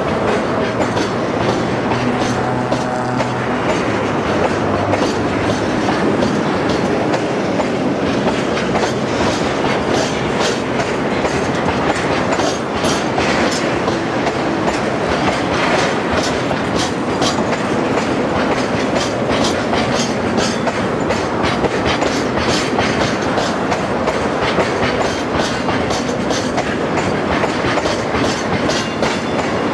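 Freight train of Taki tank wagons rolling past close by, the wheels clacking steadily and quickly over the rail joints.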